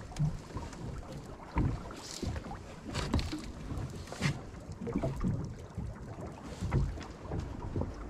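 Wind gusting over the microphone aboard a small boat drifting at sea, with water against the hull and a few light knocks and clicks.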